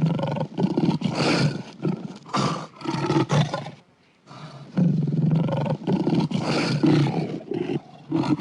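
Custom monster roar sound effect, mixed from movie monster roars and lion or crocodile growls: two long, loud, rough roars, separated by a short pause about four seconds in.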